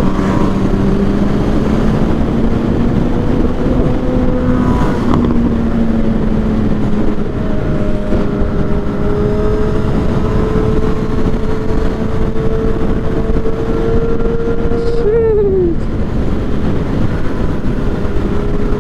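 Motorcycle engine running at a steady cruise under heavy wind rush, its pitch creeping slowly upward, with a brief sharp dip in engine pitch about fifteen seconds in.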